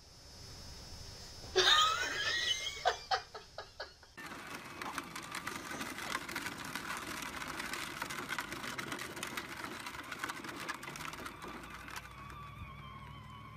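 Battery-powered toy ride-on jeep driving over dirt and gravel: a steady rough whirr of its small electric motor and wheels, with a whine near the end. Before it, a short loud cry with a rising pitch and a few sharp knocks.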